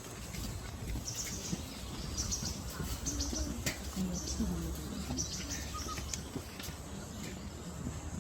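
Birds chirping in short high calls that recur every second or so, over a steady low background hum and faint distant voices.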